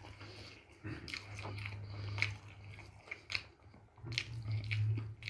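A person chewing a mouthful of rice with meat close to the microphone, with scattered wet mouth clicks and smacks. A low steady hum comes and goes twice.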